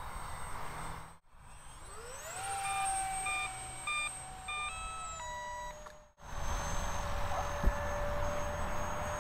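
The 50 mm electric ducted fan of an RC Avro Vulcan model whines in flight, rising in pitch as the throttle comes up about two seconds in, then easing slightly about five seconds in. A run of short electronic beeps in stepped pitches sounds over it in the middle.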